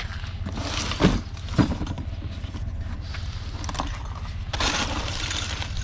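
A vehicle engine idles with a low, steady rumble, while scrap is handled: two sharp knocks a little after a second in, then a clattering rustle of junk being sorted near the end.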